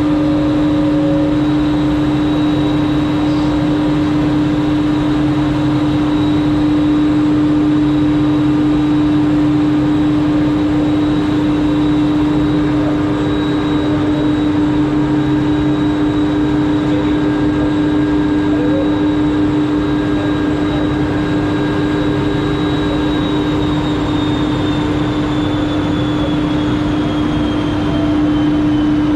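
Aerial ropeway drive machinery running in its machine room: a loud, steady mechanical hum with several constant tones over a rushing noise. A faint high whine slowly falls in pitch near the end.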